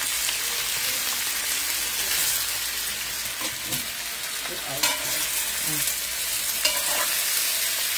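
Sliced potatoes sizzling steadily in hot oil in a wok-style pan, stirred with a spoon about halfway through, with a couple of sharp scrapes of the spoon against the pan.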